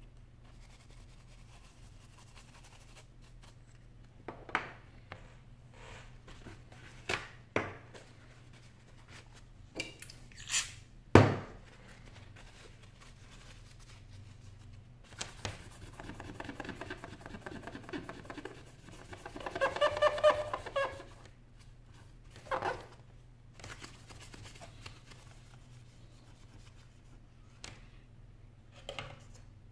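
Small iPhone 6 parts and the display's metal shield plate being handled and set down on a work mat: scattered clicks and taps, the loudest about eleven seconds in, and a stretch of rubbing and scraping around the middle.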